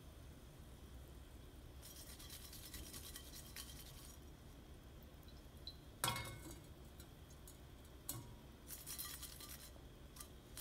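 Curry leaves crackling faintly in hot oil inside a perforated steel frying basket. About six seconds in, a sharp metal clank as the basket is lifted against the wok, then a lighter tap and another short spell of sizzling.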